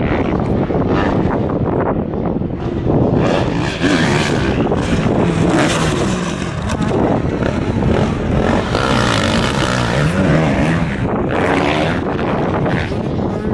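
Motocross dirt bike engines running hard, the engine note rising and falling repeatedly as the throttle is opened and closed over the jumps.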